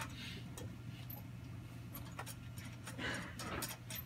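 Steady low electrical hum inside a tram car standing at a stop, with a few faint scattered clicks.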